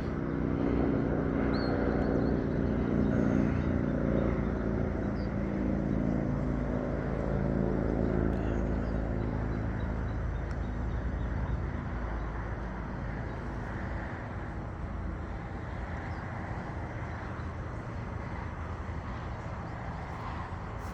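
A train's engine with a steady droning hum, fading away over the first ten seconds or so and leaving a low outdoor rumble.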